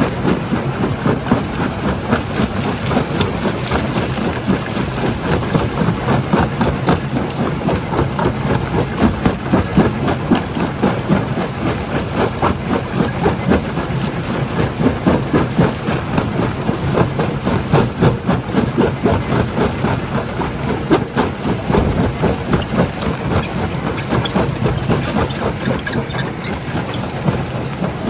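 Stone crusher running under load: a steady heavy-machine drone with a constant jumble of sharp knocks and cracks as rock is broken.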